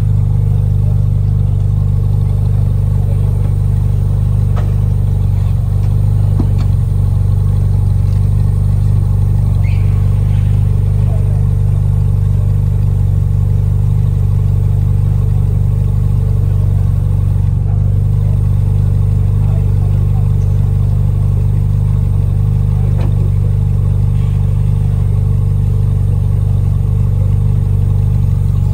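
Steady low rumble of street traffic, unchanging throughout, with a few faint clicks.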